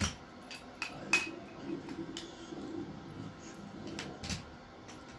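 Aluminium poles of a folding camp chair clicking and clinking against each other and into the frame's hubs as it is handled: a handful of sharp clicks, the loudest about a second in, and two more close together near four seconds in.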